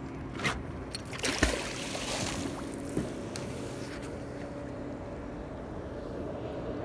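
Heavy fishing magnet on a rope thrown off a dock and splashing into the lake about a second and a half in, with a couple of sharp knocks around it. A steady low motor hum runs underneath.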